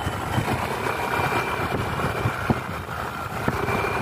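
Motorcycle engine running steadily while riding along the road, with wind rumbling on the microphone.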